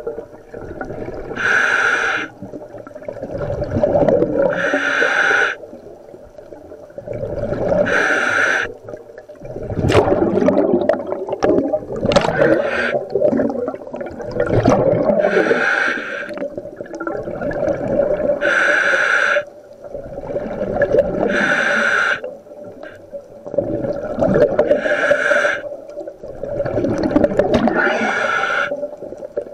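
Scuba diver breathing through the regulator of a full-face dive mask: a short hissing inhalation through the demand valve about every three seconds, each followed by a low rumble of exhaled bubbles.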